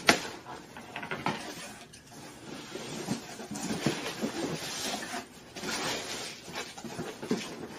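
A large cardboard box being cut open and handled: uneven scraping and rustling of cardboard, with a sharp knock at the start and a few lighter knocks.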